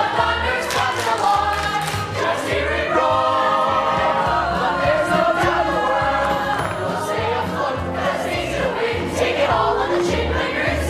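A stage chorus of young voices singing a show tune together over instrumental accompaniment with a steady low beat, sustaining long held notes as the ensemble sings the number's big finish.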